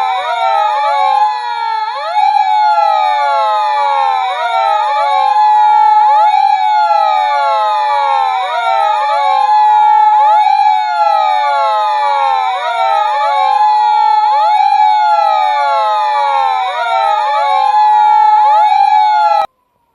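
Electronic sirens of several toy police cars sounding at once: overlapping wails that rise and fall out of step with each other, over a steady high tone. They cut off abruptly near the end.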